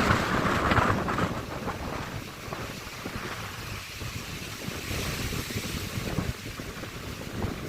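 Strong gusty wind buffeting the microphone, a rumbling rush that is loudest about the first second and then eases to a steadier roar.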